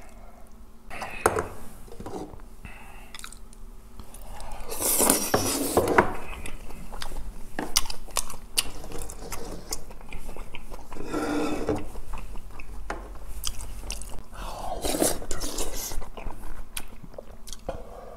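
Close-miked mouth sounds of someone eating rice-cake dumpling soup with rice and green onion kimchi: chewing and wet smacking, with many sharp clicks and a few louder stretches.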